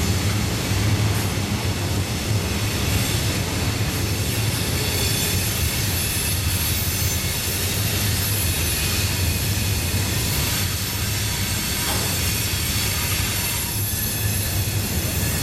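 Freight train cars rolling steadily past on the rails, a continuous low rumble of wheels and trucks with a thin high wheel squeal over it from the curve.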